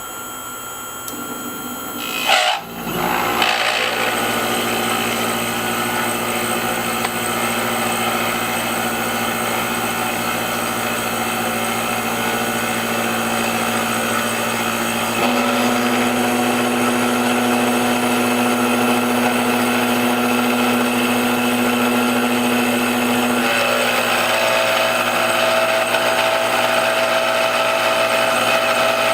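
Small CNC machine's motors running: a steady mechanical whine with several held tones that comes in with a sharp swoop about two and a half seconds in, then shifts pitch about halfway through and again near the end.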